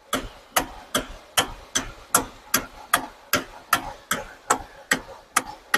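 Steering column of a 2013 Hyundai Santa Fe's electric power steering knocking, sharp, evenly spaced clacks about two and a half a second. It is the familiar knock of the star-shaped rubber coupling inside the column, which on these cars breaks up.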